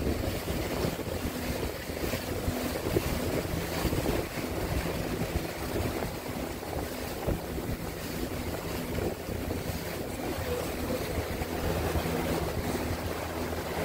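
Motorboat's engine running steadily with a low hum, under rushing wind and water noise and wind buffeting the microphone.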